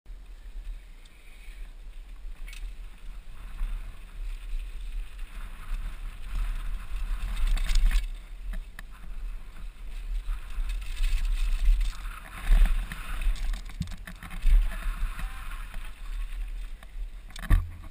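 Mountain bike descending a dusty dirt trail: wind buffets the helmet-mounted microphone with a heavy, gusting rumble, tyres hiss and crunch over loose dirt and gravel, and the bike knocks and rattles over bumps a few times.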